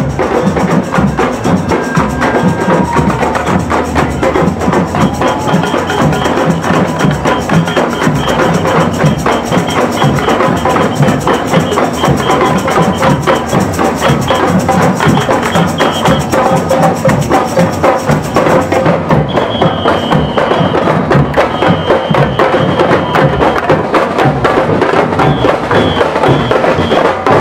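A marching street drum band playing bass and snare drums together: a loud, dense, driving drum rhythm that keeps going steadily, with short high piping notes now and then in the second half.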